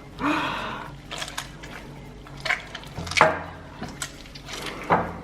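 Homemade slime squelching and popping as it is worked, with a few sharp wet snaps. The slime is over-wet from too much liquid detergent.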